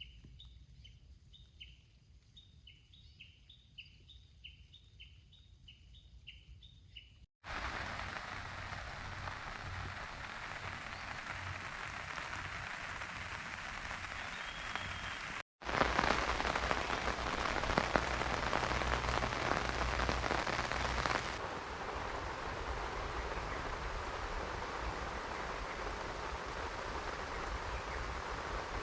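Steady rain falling, heard in several segments cut together: the middle one is the loudest and it eases a little later on. Before the rain, for about seven seconds, faint chirping calls repeat about twice a second.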